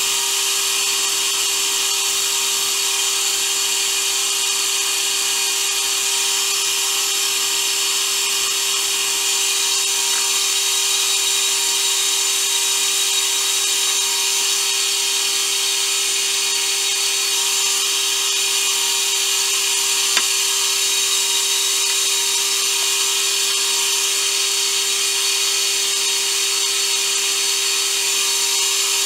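Small wood lathe running steadily with nothing cutting or sanding the spinning ash handle: a constant motor hum with one steady tone and a hiss above it.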